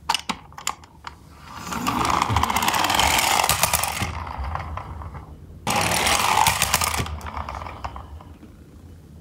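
Miniature garbage truck toy rolling down a slope and across a hard floor: a rattling whir of its small wheels, heard twice, the second run starting abruptly about halfway through and fading out. A few light clicks of the toy being handled come first.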